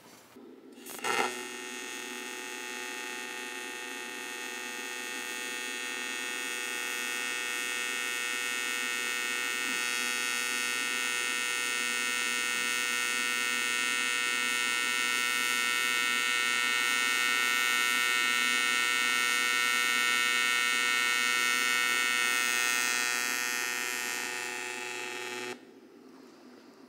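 AC TIG welding arc at 200 amps on a thick block of aluminum: it strikes with a sharp crack about a second in, then buzzes steadily, getting louder over the first several seconds, and cuts off shortly before the end. The machine is too small for the block, so the arc only cleans the surface and never forms a puddle.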